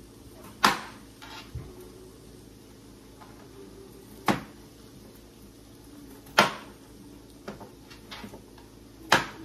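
Chef's knife cutting peeled potatoes on a plastic cutting board: the blade knocks sharply on the board four times, a couple of seconds apart, with lighter taps in between.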